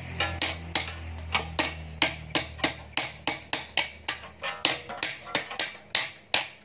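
Steady metallic clinking, about three sharp strikes a second, each with a short ring, as a steel rod is worked around a manual bending jig. A low hum fades out in the first couple of seconds.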